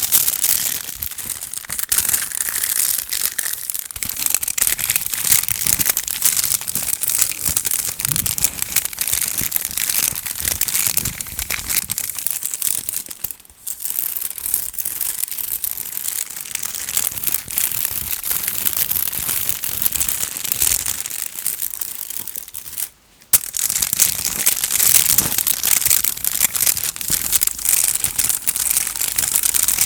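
Fast ASMR tapping on chocolate: a dense run of quick taps that breaks off briefly twice, about 13 and 23 seconds in.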